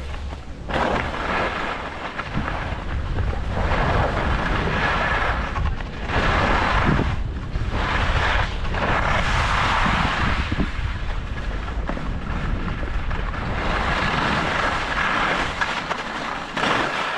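Skis scraping and hissing over hard-packed snow, in uneven surges, with wind rumbling on a GoPro Hero 11's microphone.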